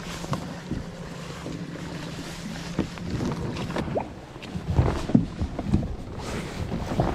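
Knocks and splashing of water around a kayak and paddle, with wind buffeting the microphone. A steady low hum stops about three seconds in, after which the knocks and splashes come thicker.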